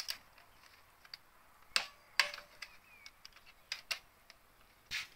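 Scattered sharp metallic clicks and clinks, six or so, from a wrench working the valve cover screws of a Mercedes M110 engine as they are tightened.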